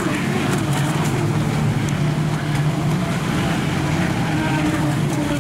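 ProBoat Recoil 26 electric RC speedboat running fast over choppy sea: a steady motor hum that shifts in pitch now and then, with short splashes as the hull hits the waves in the first half.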